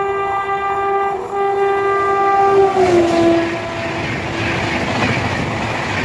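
Express train locomotive sounding a long multi-tone horn blast as it nears, with a brief break about a second in; the horn drops in pitch as the locomotive passes and fades. The coaches then rush past at speed with a loud clatter of wheels on rail joints.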